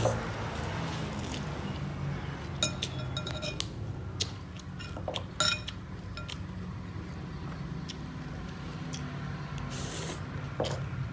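Baby macaque eating at a table: a few sharp clicks and small crunches from biting and handling its food, over a steady low hum.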